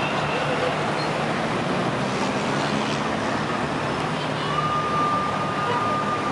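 Steady road traffic noise, with a faint thin tone joining about halfway through.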